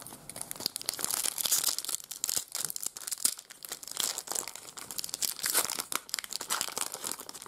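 Foil trading-card pack wrapper crinkling and tearing as it is opened by hand: a continuous run of sharp crackles.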